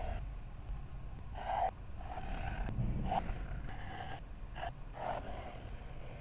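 Fine-tip pen drawn across dot-grid journal paper along the edge of a clear plastic stencil, in a series of short separate strokes.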